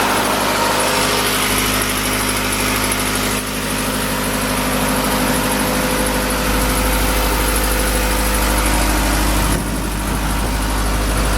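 Diesel engine of a 2014 Atlas Copco XAS185KDIT4 portable air compressor running steadily, with a brief dip in level about three and a half seconds in.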